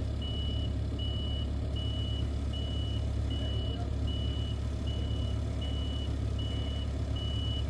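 A vehicle's backup alarm beeps steadily, one high beep about every three-quarters of a second, over the low, steady running of a heavy engine.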